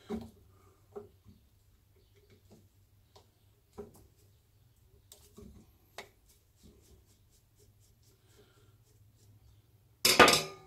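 Small clicks and light scraping of a Phillips screwdriver undoing the earth-strap screw on an air compressor motor's end bracket, then a loud short clatter with a brief ring near the end.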